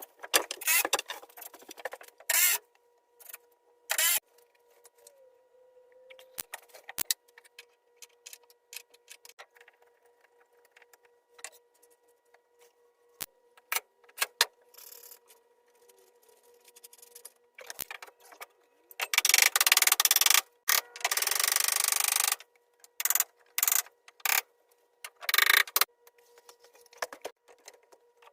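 Scattered knocks, clicks and clatter of boards and tools being handled, with a few seconds of harsh, loud scraping about two-thirds of the way through.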